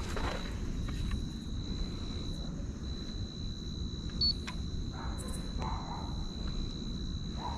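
Quiet outdoor ambience: a low rumble with a thin, steady high-pitched whine, and one short beep about four seconds in.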